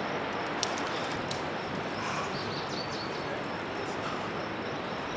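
Steady outdoor background noise with a few short, high bird chirps about two seconds in and a couple of sharp clicks early on in the first second and a half.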